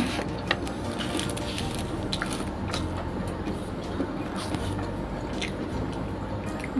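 Eating by hand: faint, scattered clicks and smacks of fingers picking at food and of the mouth eating, over a low steady hum.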